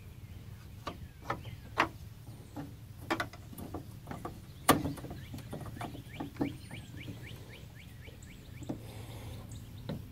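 Irregular clicks and knocks of a bulky H11 LED headlight bulb with a finned heat sink being worked and rotated into a tight headlight housing socket, with one sharper knock a little before halfway.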